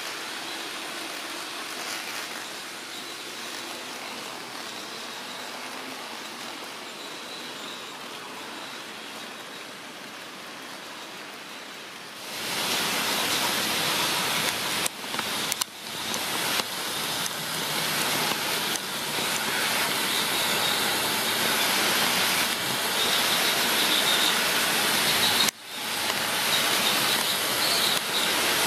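HO scale model freight trains running on plastic-roadbed track: a steady whirring rush of small locomotive motors and metal wheels rolling on the rails. It grows clearly louder about twelve seconds in, and drops out briefly a few times.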